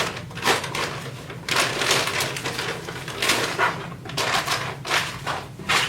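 Packaging rustling and crinkling in irregular bursts as a car head unit is lifted out of its box and unwrapped.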